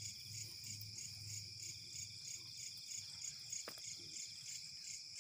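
Crickets and other night insects chirping steadily in several high-pitched layers, one of them pulsing about twice a second. A single sharp click about three and a half seconds in.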